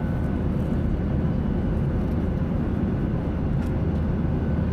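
Steady drone inside a jet airliner's cabin in flight: a constant low rumble of engine and air noise with a faint, even hum over it.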